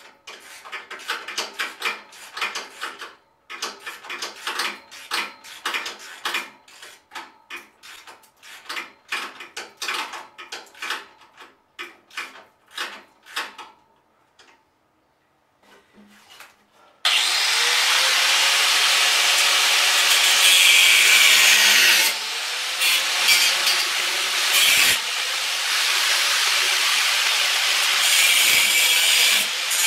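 Quick scraping strokes on wood, two or three a second, for about the first half. After a short pause, a power drill runs steadily and loud under load, its motor pitch sagging and recovering as it drills into the wooden board.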